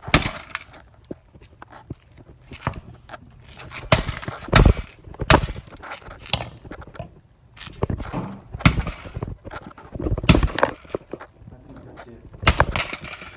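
A smashed DirecTV satellite receiver being broken apart: about a dozen sharp, irregularly spaced cracks and snaps of its plastic casing and circuit board, with rattling of loose pieces on concrete between them.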